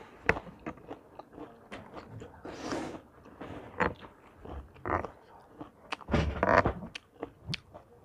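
Close-up eating sounds: chewing and crunching of a spicy seafood salad with sweet corn, with a metal spoon clicking and scraping on a metal serving tray that clunks, in a string of sharp clicks and a few short louder scrapes.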